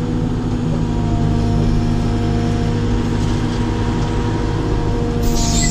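Caterpillar 432F2 backhoe loader's diesel engine running steadily under load, with a steady hydraulic whine, heard from inside the cab as the backhoe arm is worked. A short hiss comes near the end.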